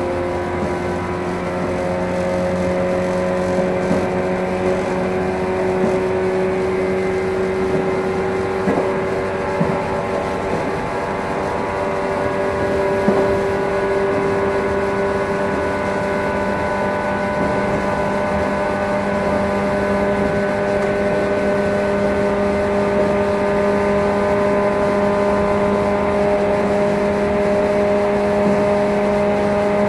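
JR 115 series electric multiple unit heard from inside its motor car: the traction motors and gears whine as several steady tones that slowly rise in pitch as the train gathers speed, over the rumble of wheels on rail. A few clicks and knocks come through from the running gear.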